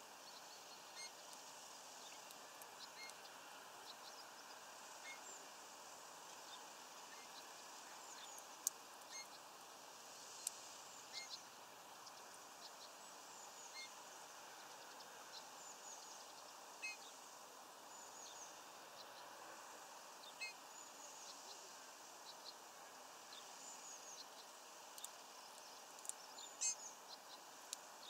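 Faint, short, high chirping calls of small birds scattered throughout over a steady hiss, with a few sharp clicks, the loudest about a third of the way in and near the end.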